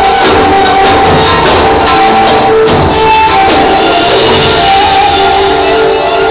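Loud Arabic belly-dance music playing over a theatre's sound, a melody held over a busy percussion beat.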